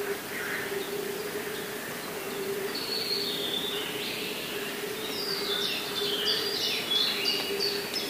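Wild songbirds singing, with bursts of quick descending phrases that grow denser in the second half. Under them runs a steady low hum.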